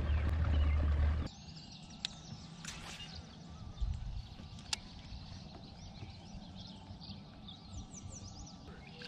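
A steady low motor hum stops abruptly about a second in. Then small birds chirp over quiet river air, with a couple of sharp clicks.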